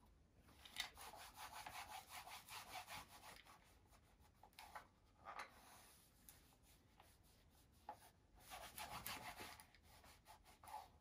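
A cloth rubbing along a shotgun's barrel and forend as it is hand-polished. The rubbing is faint and comes in quick irregular runs of strokes, with a lull in the middle.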